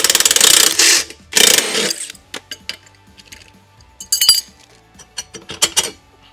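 Cordless impact wrench hammering a nut off a frame bolt in two short bursts, the second stopping about two seconds in. Light metallic clinks and taps of tools and parts follow, the loudest a bright clink a little after four seconds.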